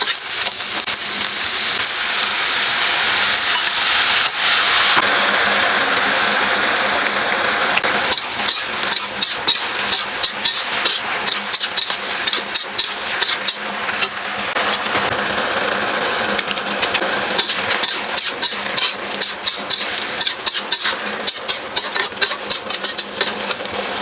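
Food sizzling in a hot wok, loudest in the first few seconds. From about eight seconds in, many sharp, irregular clacks of a spatula against the wok join the sizzling as the food is stir-fried.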